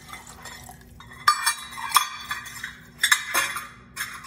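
Stainless steel measuring cups and a whisk clinking against a metal saucepan while water is added to thickened gravy. Several sharp clinks, with a stretch of liquid and scraping noise between them.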